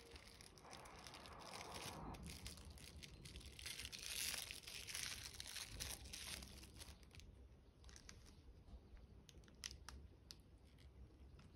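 Faint crinkling and tearing of lunch packaging being opened by hand, followed by a few light clicks and taps near the end.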